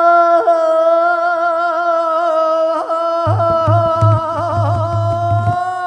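A long, high sung note held steady in a single breath, wavering briefly in the middle, in the manner of a likay singer's drawn-out 'โห' call. A regular drum beat joins about three seconds in.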